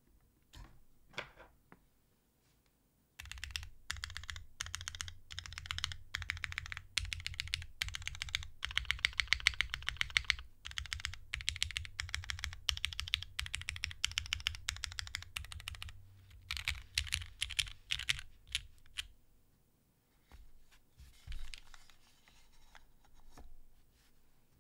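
Mechanical keyboard's modifier keys being pressed: a wilba.tech Salvation with lubed Cherry MX Black Clear Top linear switches and lubed TX stabilizers on a carbon fibre plate. A few scattered clicks, then a dense run of rapid presses lasting over ten seconds, then shorter bursts that thin out near the end.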